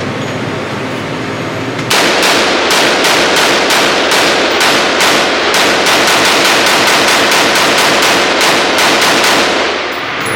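Rapid gunfire at a shooting range: a fast string of shots, about three to four a second, starting about two seconds in and running for some seven seconds before stopping near the end.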